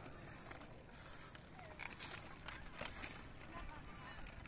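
Small child's bicycle with training wheels rolling over rough asphalt, with a high rattling hiss that swells and fades about once a second.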